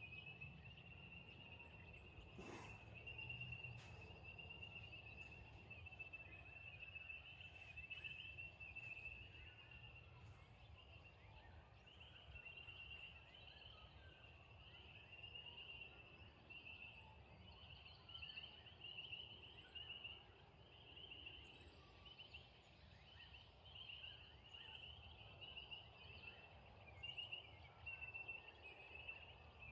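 Faint, shrill insect chorus holding one high pitch, which starts to pulse in a steady rhythm about halfway through, over a low background rumble. A single faint click comes a couple of seconds in.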